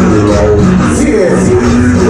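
Loud cumbia music with a steady beat and bass line, played over a sonidero sound system.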